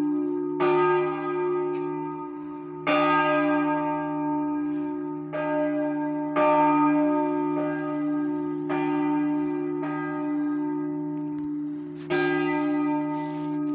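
Church bell swung for the noon ringing, the middle bell of a three-bell peal cast by Capanni in 2009. Its clapper strikes about every one to two seconds, some strokes weaker than others, each one ringing on over a steady hum.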